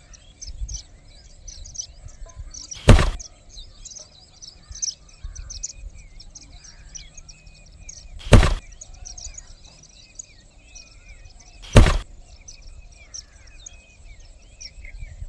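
Small birds chirping continuously in the background, broken by three sharp knocks about three, eight and twelve seconds in.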